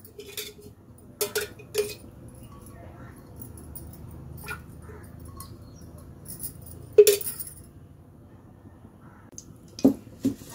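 A steel spoon clinking against the inside of a steel pressure-cooker pot as cooking oil is spooned in: several separate clinks, the loudest about seven seconds in, over a faint low hum.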